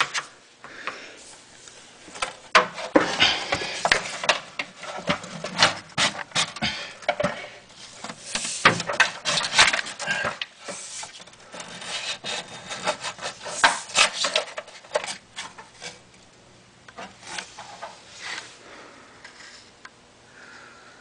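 Old fuel-tank vent tube being worked loose and dragged out of a 1997 BMW 740iL's frame rail by hand: irregular rubbing, scraping and knocking, dense at first and dying down over the last few seconds.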